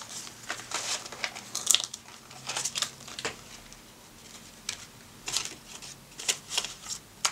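Crinkling and rustling of a clear plastic binder pocket and paper banknotes being handled, in short irregular bursts, as a 5-euro note is slipped into the pocket.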